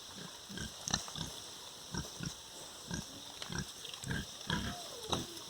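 Pigs grunting, short grunts repeating about twice a second, with a higher call that falls in pitch near the end.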